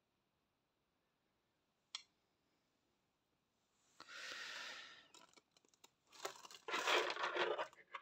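A single click about two seconds in, then rustling and brushing as hands and a sleeve move a stuffed crocheted doll about on a table, louder in the last two seconds.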